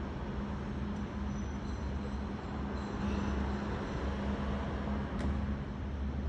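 A steady low engine rumble with a constant hum, like a diesel engine idling. Faint high-pitched squeals sound in the first half, and a single sharp click comes about five seconds in.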